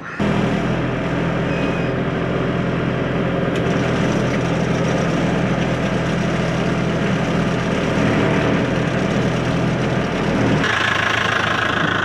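Tractor's diesel engine running steadily, heard from inside the cab, with a single knock about three and a half seconds in; near the end the sound changes and becomes brighter.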